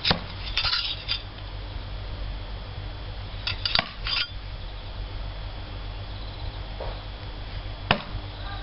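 Steel throwing knives clinking against one another in the hand as they are handled: a few sharp metallic clicks in the first second, a quick cluster of clicks in the middle, and one more near the end.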